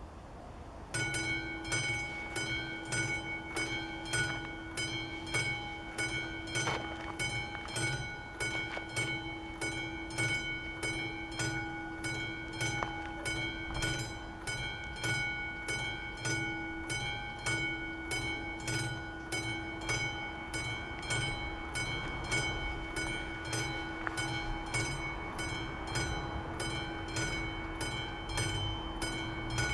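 The mechanical bell of an AŽD 71 level-crossing warning signal starts about a second in and strikes over and over in an even rhythm. The strokes ring on as steady tones at several pitches, warning that a train is approaching.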